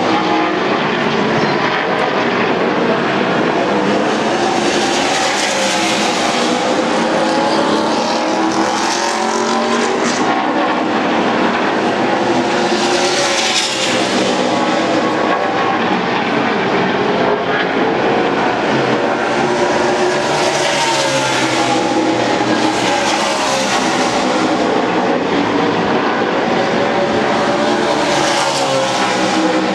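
NASCAR Nationwide Series stock cars' V8 engines at racing speed, a continuous loud drone of several cars on track. It swells and fades as cars pass one after another every few seconds.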